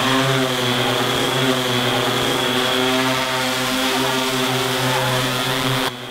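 Yuneec multirotor drone hovering close by, its propellers giving a loud, steady buzzing hum with a high whine on top. The sound cuts off abruptly near the end.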